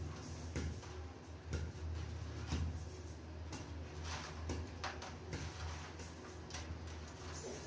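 Galvanized wire mesh clicking and ticking as the wires of a basket are bent and handled by hand, irregular light clicks about one or two a second, over a steady low hum.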